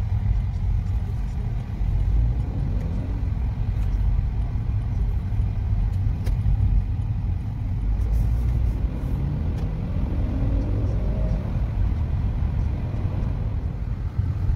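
Steady low rumble of road and engine noise inside a moving car's cabin, with a faint rise in pitch a few times as the car speeds up.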